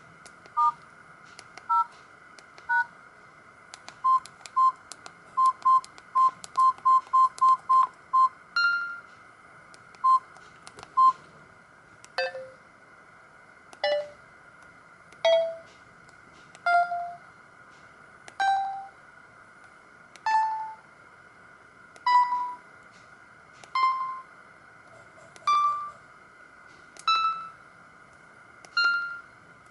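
Samsung GT-E2120 phone's speaker: short keypad beeps, with a quick run of identical beeps about four to eight seconds in. After that comes a stock ringtone, single ringing notes about every one and a half to two seconds, each climbing a step higher in pitch.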